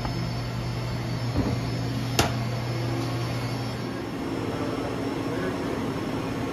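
Steady hum and fan rush of equipment and ventilation in a mechanical room, with one sharp click about two seconds in. The humming tone drops out about four seconds in, leaving the fan-like rush.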